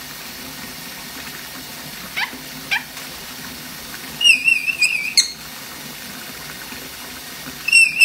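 Parrot whistling: two short rising chirps, then a wavering high whistle about a second long that ends in a sharp click, with the whistle starting again near the end. A steady low hum runs underneath.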